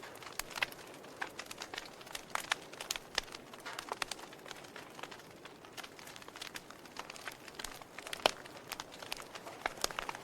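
Wood fire crackling in a fireplace: irregular sharp snaps and pops over a faint hiss, with one louder pop about eight seconds in.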